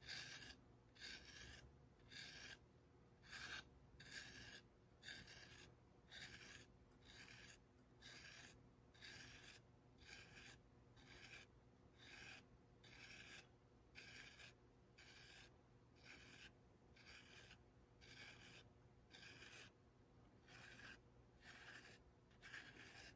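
Metal rib scraping over soft clay in faint, even strokes, about two a second, smoothing and blending the seam where an added coil rim joins a pinch pot bowl's wall.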